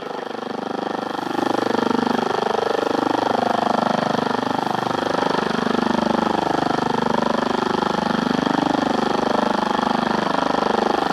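Helicopter-like noise over the BBC World Service on 9580 kHz, heard through a Sony ICF-7601 shortwave radio's speaker: a rapid, even pulsing with a warbling tone underneath. It swells over the first second or so, then holds steady and drowns out the broadcast.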